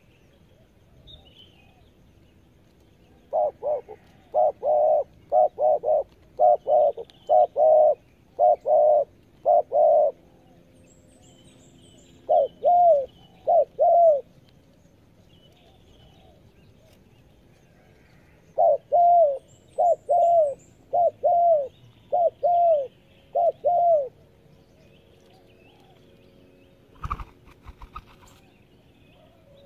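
Spotted dove cooing in three bouts of quick, repeated coos, with faint small-bird chirps between them and a short knock near the end.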